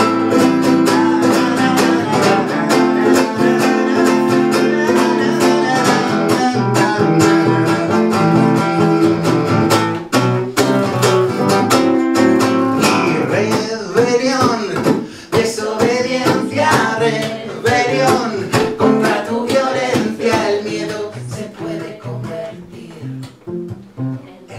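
Solo acoustic guitar strummed in a steady rhythm. About halfway through, the playing thins out and grows quieter toward the end.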